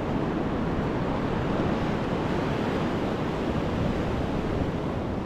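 Ocean surf washing steadily up the beach, with wind rumbling on the microphone.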